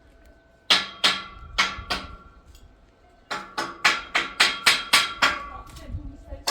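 Hammer striking metal, each blow ringing: four separate blows, then a quicker run of blows at about three to four a second.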